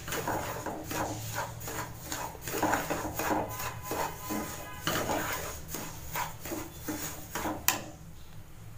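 Wooden spatula stirring and scraping semolina (rava) as it roasts dry and turns golden brown in a pan: a steady run of short rubbing, scraping strokes, with one sharper knock near the end, after which it goes quieter.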